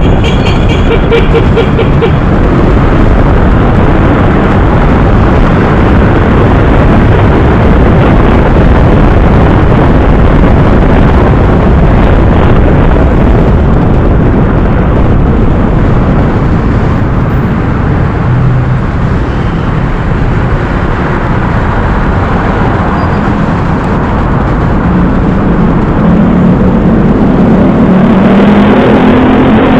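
Motorcycle riding in city traffic, picked up by a helmet-mounted action camera: loud, steady engine and road noise. A short high beeping tone sounds near the start, and a steady engine hum comes through more clearly in the last few seconds.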